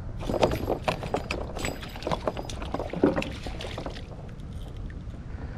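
Water splashing around a landing net dipped beside a kayak, with a quick run of splashes, knocks and clatters that dies away after about four seconds.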